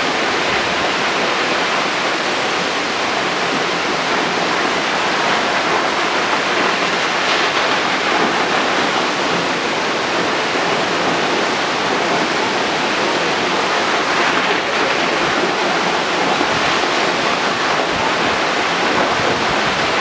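Large waterfall pouring down a cliff onto rocks: a steady, even rush of falling water.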